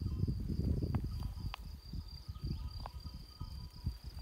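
Steady high-pitched insect trill over a low wind rumble on the microphone, with scattered light clicks and taps of a knife slicing cheese on a wooden board.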